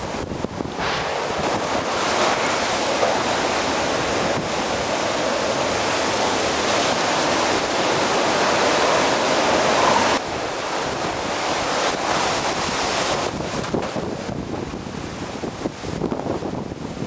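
Hurricane-force wind from the back side of the storm, after the eye has passed, blowing loudly and steadily, with wind buffeting the microphone. The level drops suddenly about ten seconds in and turns gustier near the end.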